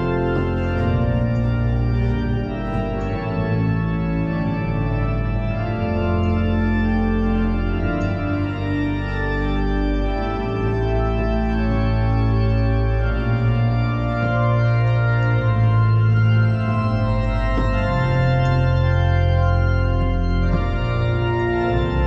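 Church pipe organ playing slow, held chords over deep pedal bass notes.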